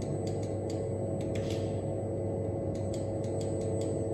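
Laser repair machine at work on an LCD panel: short sharp clicks at an irregular pace, about two or three a second, over a steady hum.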